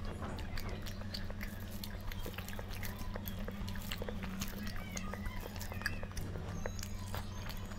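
Close-up sounds of a person chewing and biting food, with irregular small smacks and clicks, over a steady low hum.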